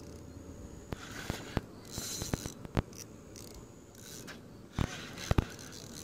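Handling of a fishing rod and spinning reel: scattered sharp clicks and brief rustles, with a close pair of louder clicks near the end.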